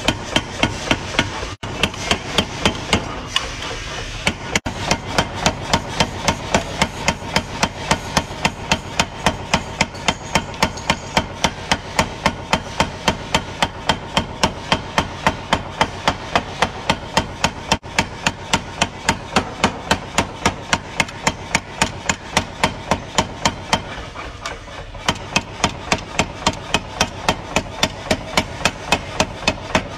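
Power hammer forging a red-hot steel cleaver blank: the ram strikes the hot metal on the die in a fast, steady rhythm of about three to four blows a second, with a few brief breaks. The machine's steady running noise is heard between the blows.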